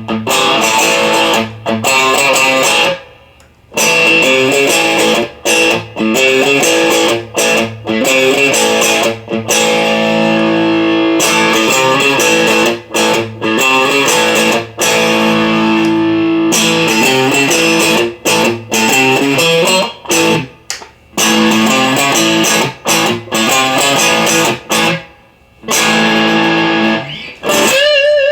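Electric guitar played through a Marshall DSL1 amp for a pickup sound test: strummed chords and short riffs that ring out, cut off sharply every second or so, with a few longer pauses.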